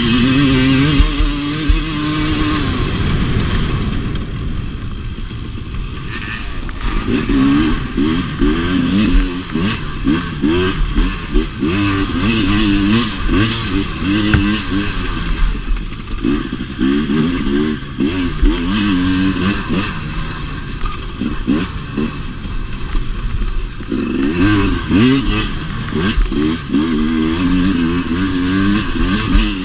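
2017 KTM 250 XC-W two-stroke dirt bike engine under hard riding. It holds high revs briefly at the start, then rises and falls quickly over and over as the throttle is worked, with frequent knocks and rattles from the bike over rough ground.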